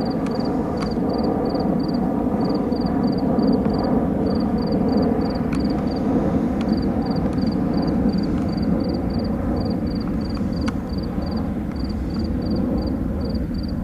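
Jet aircraft flying overhead, a steady deep rumbling roar with a lighter hiss on top. A high, regular chirping pulses about three to four times a second over it.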